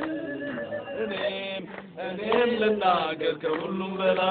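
A group of men's voices chanting a song together over a steady held tone, growing fuller and louder about halfway through.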